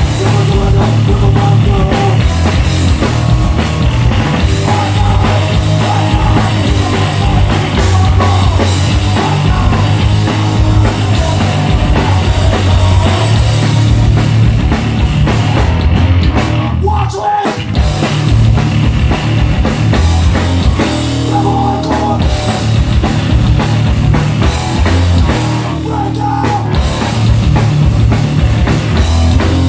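Hardcore punk band playing live, loud: distorted guitars, bass and drums pounding on, with a brief full stop a little past halfway before the band crashes back in.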